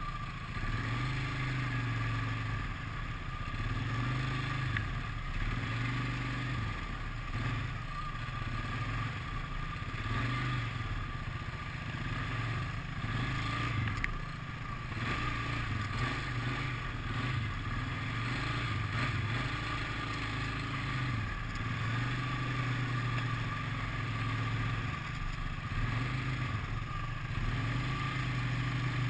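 ATV engine running at trail speed, its pitch rising and falling every couple of seconds as the throttle is opened and eased, with a few sharp clicks as the machine jolts over rough ground.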